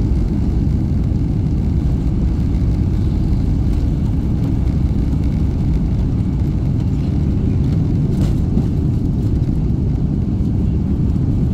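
Boeing 767-200ER on its takeoff roll, heard from inside the cabin: a loud, steady low rumble of the engines at takeoff power and the wheels running on the runway.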